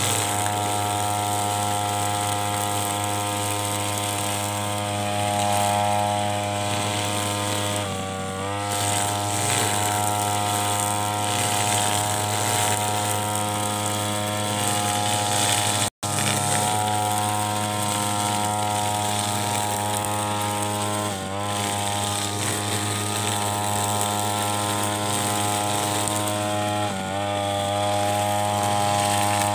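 Backpack brush cutter's petrol engine running at high speed as the blade cuts grass, a steady high drone whose pitch dips briefly a few times as the blade takes a load of grass.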